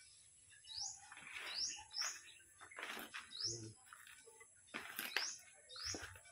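A bird chirping over and over, short high chirps about once a second, with soft scraping from hands working soil in a plant pot.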